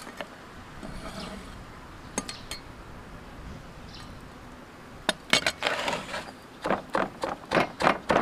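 Stone pestle pounding garlic and chillies in a stone mortar: a run of sharp knocks, about three a second, starting about five seconds in. Before that, a few light clicks as a cleaver scrapes the chopped chillies and garlic into the mortar.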